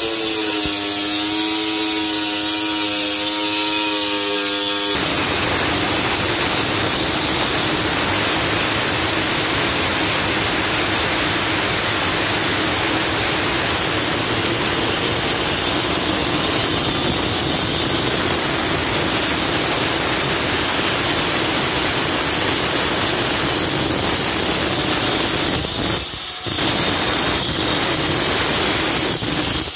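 Handheld electric marble cutter with a 4-inch blade sawing along a thick stone slab: a loud, steady grinding. It starts after a few seconds of a steady held tone, and dips briefly once near the end.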